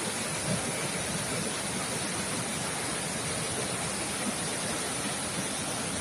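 A strong, fast-flowing river stream rushing steadily over rocks.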